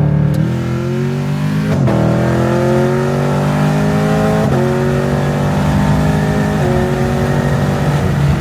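Cammed Camaro V8 accelerating hard, its pitch climbing and then dropping at quick automatic upshifts about 2, 4.5 and 6.5 seconds in, each followed by a fresh climb.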